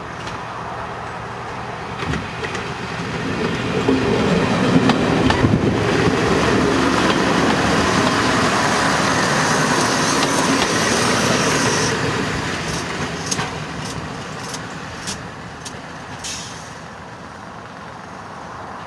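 Class 127/114 hybrid diesel multiple unit approaching and running close past, its diesel engine and wheels on the rails loudest for several seconds in the middle. As it draws away the sound fades under a string of sharp clicks.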